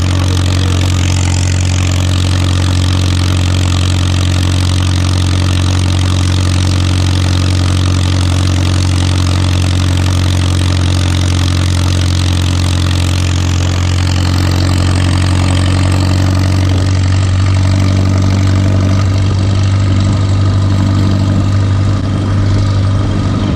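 McCormick-Deering Super M tractor's four-cylinder gasoline engine running steadily as the tractor travels down the road at an even pace, heard close to its upright exhaust stack.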